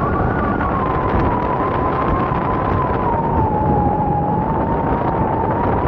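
Strong wind rushing over the microphone in flight under a paraglider. A continuous tone sits on top of it, sliding slowly lower around the middle and back up near the end.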